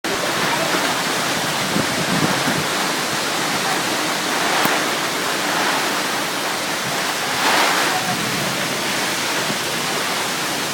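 Steady rushing noise of a powerful windstorm, swelling in gusts about two seconds in and again around seven and a half seconds in.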